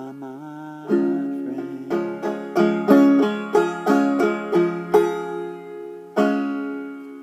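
Five-string banjo played solo: a quick run of picked notes, then one final strummed chord about six seconds in, left to ring out and fade as the song ends.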